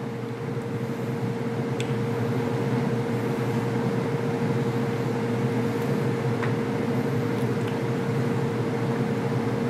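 Steady machine hum: a motor or fan running, with one constant mid-pitched tone over a low drone. A few faint clicks sound over it.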